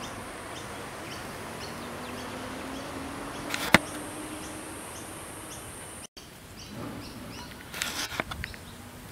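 Bushland ambience: a steady high insect buzz with short high chirps repeating about twice a second, and a faint low drone underneath. There is a single sharp knock a few seconds in, the sound drops out briefly a little after six seconds, and rustling handling noise follows near the end.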